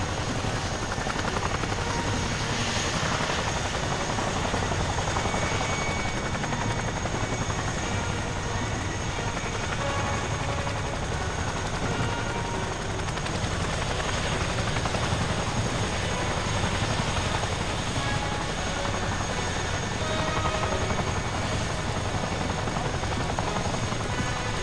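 RAF helicopters running steadily, a dense continuous rotor chop with a thin, steady high-pitched whine over it.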